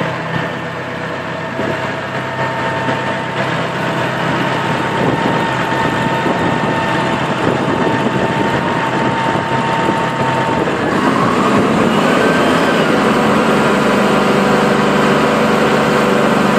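Hyster top loader's diesel engine running, with a steady whine on top; about eleven seconds in the whine stops and the engine grows louder.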